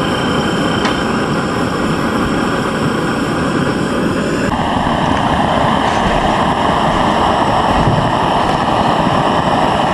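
A small motor running loudly and steadily, switched on just before; its tone shifts about four and a half seconds in.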